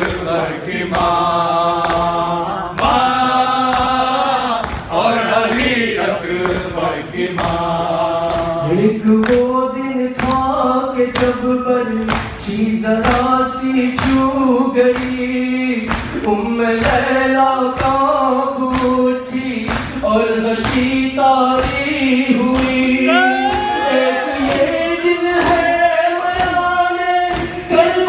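Urdu nawha: a male lead reciter singing a slow lament into a microphone, with a group of men's voices singing along, unaccompanied. Short, evenly repeated slaps of matam (hands beating on chests) keep the beat under the singing.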